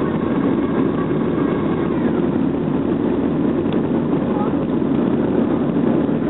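Steady cabin noise of a Boeing 737-300 climbing after takeoff: its CFM56 turbofan engines and the rushing air heard through the fuselage as a dense, even low rumble and hiss.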